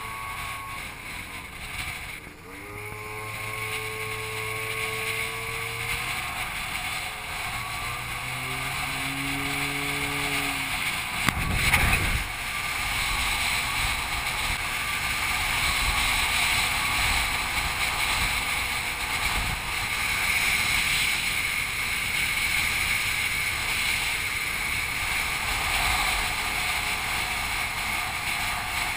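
Small scooter engine running at riding speed, with wind rushing over the microphone. The engine note shifts in pitch a few times in the first ten seconds. A single thump comes about twelve seconds in.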